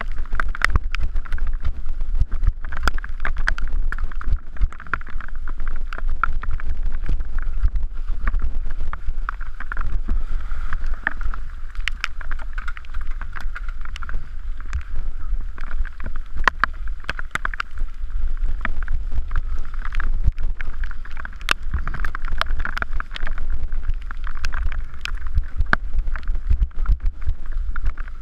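Mountain bike descending a rough, wet dirt trail: wind rumbling on the camera microphone, over a constant rattle of the bike with many sharp knocks as it runs over rocks and roots.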